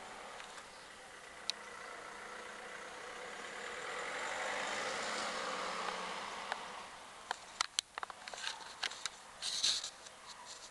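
A vehicle passing by, its sound swelling for a few seconds and then fading away, followed by a scatter of sharp clicks and taps.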